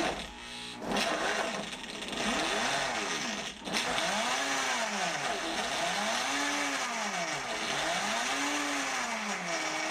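Kuvings SV500 1700-watt vacuum blender running its blend-only program on frozen banana and pineapple chunks, starting about a second in. The motor pitch rises and falls in a slow cycle about every two seconds, with a brief dip just past three seconds.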